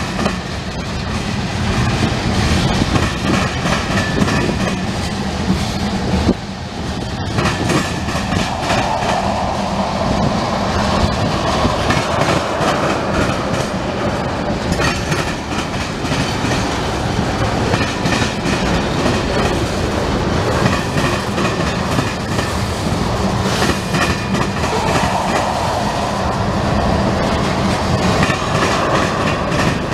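Freight train of tank cars and covered hoppers rolling past, steady loud rumble of steel wheels on rail with repeated clickety-clack as the trucks cross rail joints.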